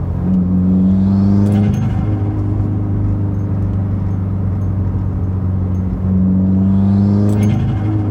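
Cabin drone of a 2017 Subaru WRX's turbocharged 2.0-litre flat-four through a Carven cat-back exhaust and catted J-pipe. Twice, the engine note climbs under a brief press of the throttle, about a second in and again about six seconds in. Each time the driver lifts off, there is a quick flutter and hiss from the Boomba bypass valve.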